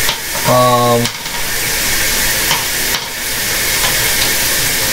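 Steady hissing noise throughout, with a brief low hum about half a second in.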